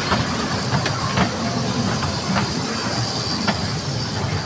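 Small electric kiddie ride train running along its track close by: a steady rumble with a few separate clicks.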